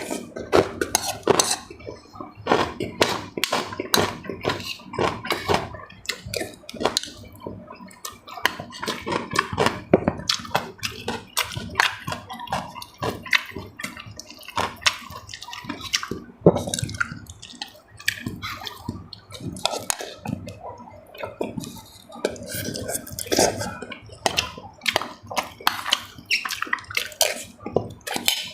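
Close-miked eating: quick, irregular wet slurps and chewing with clicks of a spoon against a bowl, sounding all through.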